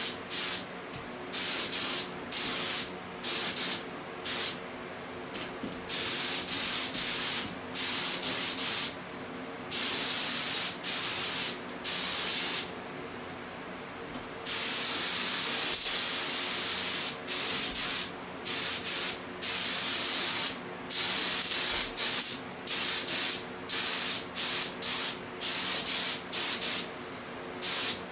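Compressed-air paint spray gun hissing in on-off bursts as its trigger is pulled and released. Many bursts are short and a few are held for several seconds. A steady low hum runs underneath.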